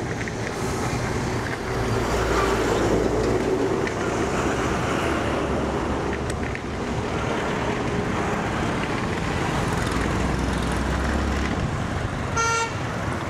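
Steady road traffic noise around a scooter in town, with low rumbles of passing vehicles, and a short vehicle horn beep near the end.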